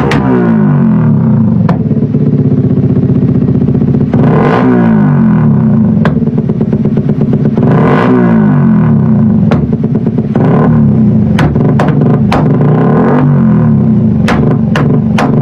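Suzuki Raider 150 Fi's single-cylinder four-stroke engine revved on a dyno through an open aftermarket stainless exhaust. The revs fall away, then climb and drop again in throttle blips about four and eight seconds in, with sharp exhaust pops and crackles on overrun, thickest near the end.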